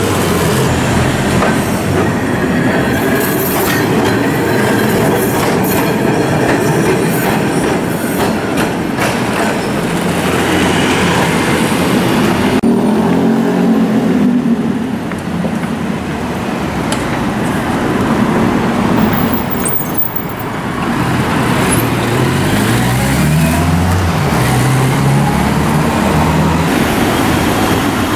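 Busy city street traffic: scooter and motorcycle engines passing by, rising and falling in pitch, over a steady traffic rumble. The sound shifts abruptly twice.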